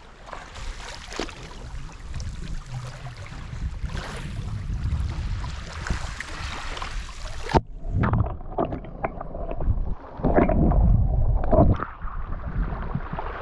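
Lake waves washing and gurgling over a pebble shore, with wind rumbling on the microphone. The sound cuts off abruptly about seven and a half seconds in, then resumes with louder, uneven surges and scattered clicks.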